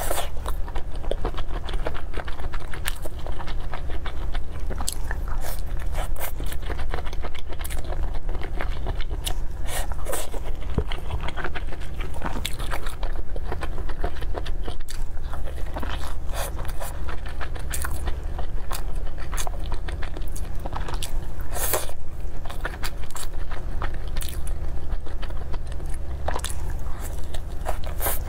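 Close-miked biting and chewing of crisp pastry tarts: many sharp crunches and crackles of the shell, with wet mouth sounds, over a low steady hum.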